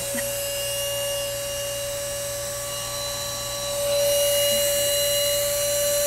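Oraimo cordless handheld vacuum running steadily, its motor giving a high, even whine. The rushing air grows louder about four seconds in.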